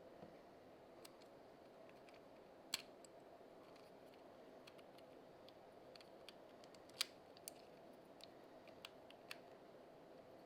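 Near silence with a faint steady hum and scattered light, sharp clicks, two of them clearly louder, about a quarter and two-thirds of the way through.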